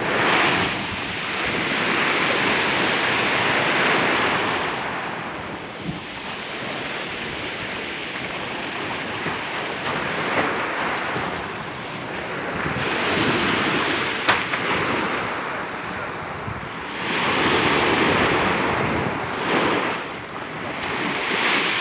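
Black Sea storm surf: heavy waves breaking and washing ashore, swelling and easing in surges every few seconds.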